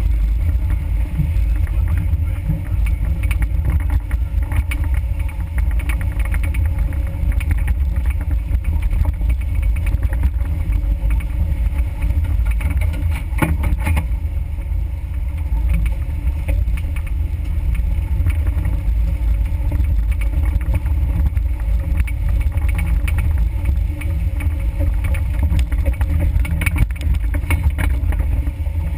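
Low, steady rumble of a 4x4's engine and drivetrain crawling along a rutted mud trail, picked up by a vehicle-mounted camera, with scattered knocks and clunks from bumps, a sharper one about halfway through.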